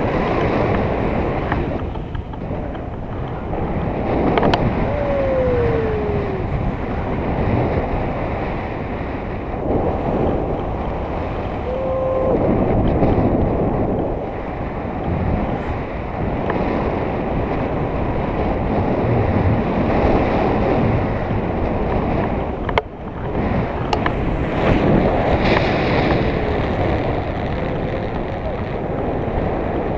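Wind rushing over the microphone of a camera on a paraglider in flight: a steady, loud rush that swells and eases. A couple of faint brief whistle-like tones come through it.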